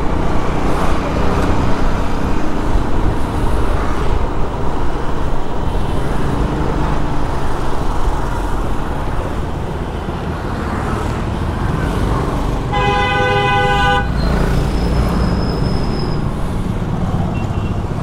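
Steady rumble of road traffic, with a vehicle horn sounding once, a single held honk of just over a second, about thirteen seconds in.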